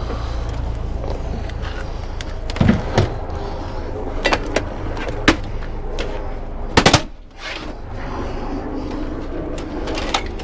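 Scattered sharp knocks and clunks of hard equipment being handled and set down as e-waste is loaded, with a double bang about seven seconds in. A steady low rumble runs underneath.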